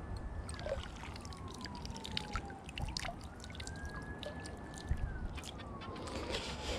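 A distant emergency-vehicle siren wailing faintly, its pitch rising and falling in slow sweeps about every three and a half seconds. Over it come small clicks and rustles of hands picking weed off a soft plastic frog lure and its line.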